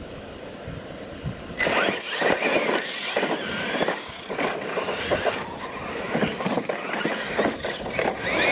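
Losi LMT radio-controlled monster trucks racing on dirt. It is quiet at first, then about a second and a half in the trucks launch off the start, their electric motors whining up and down in pitch. Scattered knocks come from the trucks hitting ramps and bumps.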